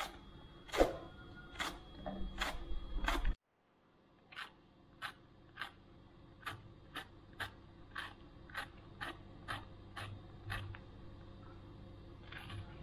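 Small kitchen knife slicing through a peeled luffa gourd held in the hand, with a short sharp tick at each cut. The cuts come about once a second at first, then after a brief break speed up to two or three a second.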